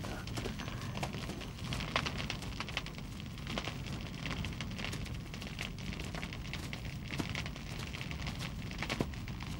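Wood fire burning in a brazier, crackling with frequent sharp pops over a steady low rumble.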